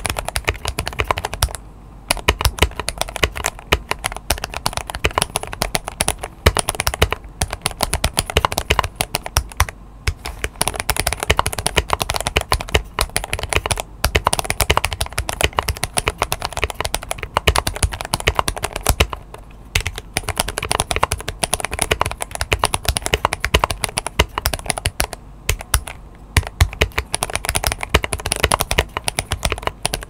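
Fast, continuous typing on a GMMK Pro mechanical keyboard with a polycarbonate plate, Feker Holy Panda tactile switches and Akko Carbon Cherry-profile keycaps, broken by a few brief pauses. The board has been worked on to get rid of ping.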